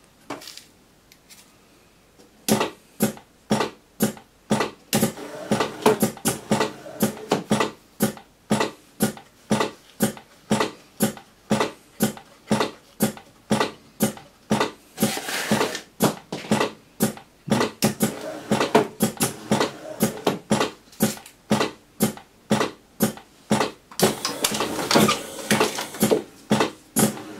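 Electric OCB Mikromatic cigarette-tube stuffing machine running, its mechanism clacking about twice a second as it fills tubes with tobacco, starting about two and a half seconds in.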